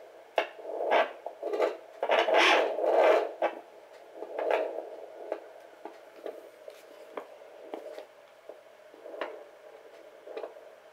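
Pocket fetal Doppler's speaker hissing and scraping as the ultrasound probe is slid over gel on a pregnant belly, searching for the fetal heartbeat. Loud rubbing swishes over the first few seconds, then fainter short pulses at uneven intervals over the steady hiss.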